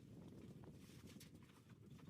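Near silence: a faint low rumble with a few faint clicks.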